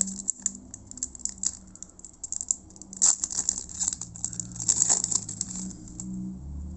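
Foil trading-card pack wrapper crinkling and crackling as it is torn open and pulled apart by hand. The crackles come in quick irregular runs, loudest about three and five seconds in, and stop about six seconds in.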